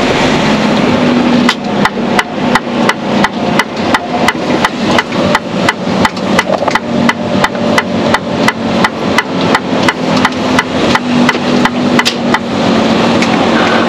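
Turn-signal indicator ticking in a Mercedes Actros truck cab, about three even clicks a second over the steady hum of the engine. The ticking starts about a second and a half in and stops about a second before the end, as the turn is completed.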